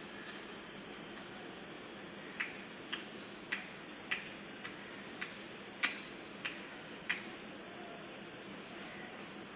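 A run of nine sharp clicks, about one every half second and uneven in strength, starting a couple of seconds in and stopping a couple of seconds before the end, over a steady hiss.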